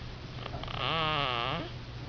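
A baby snoring: one pitched snore lasting about a second, its pitch dipping and rising again, over a steady low hum.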